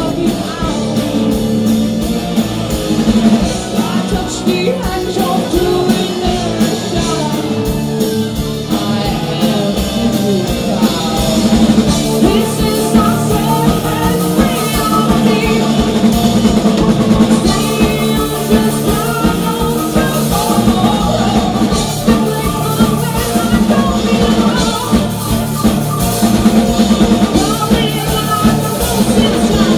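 Live rock band playing heavy psychedelic rock: distorted electric guitars, bass guitar and a driving drum kit, with a woman singing lead. Loud and continuous, with steady drum hits throughout.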